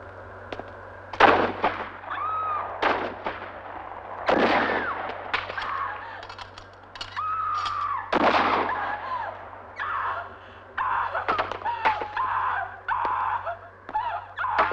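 Three loud, sharp bangs about four seconds apart, each trailing off, among short chirping calls that come thicker and faster near the end.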